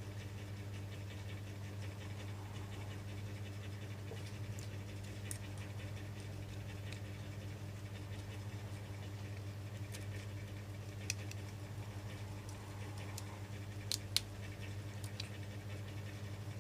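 A steady low electrical hum with a few small, sharp clicks and taps scattered through it, two close together near the end standing out most.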